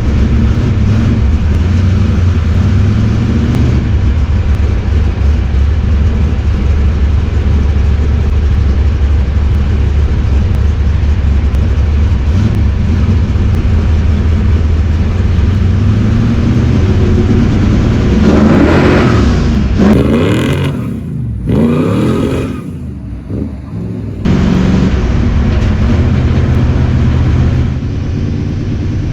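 Truck engine running with a steady deep rumble, then revved up and down several times about two-thirds of the way through, before settling back to a steady rumble.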